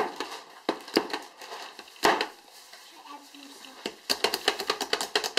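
Plastic hand-operated food chopper being worked on a cutting board: a few scattered knocks, then a rapid run of clicks near the end.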